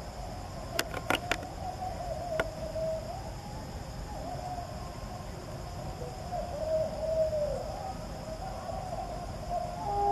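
A distant train horn sounding one long note whose pitch wavers up and down. Three sharp clicks come about a second in and another near two and a half seconds.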